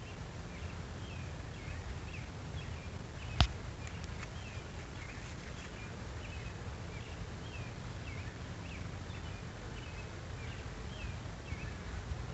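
A small animal chirping over and over, about two short chirps a second, over a steady low rumble of outdoor background noise. One sharp click about three and a half seconds in.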